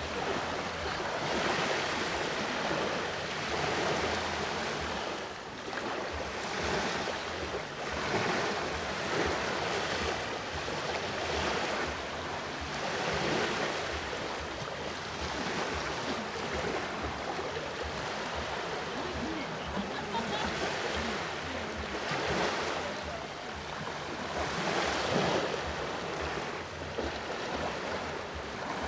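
Sea waves washing in on the shore, the surf swelling and falling away again and again.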